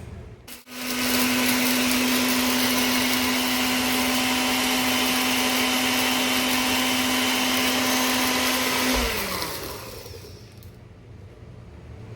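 Electric blender dry-grinding roasted whole spices (cumin, coriander seed, cinnamon, red chili flakes) into masala powder. Its motor runs loud and steady for about eight seconds, then is switched off, and its whine falls in pitch as it spins down.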